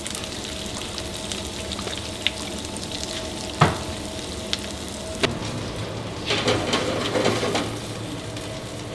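Diced boiled potatoes sizzling and crackling in olive oil and butter in a frying pan over a gas flame. Two sharp knocks come a little before and a little after the middle, and the sizzling grows louder for a moment past the middle.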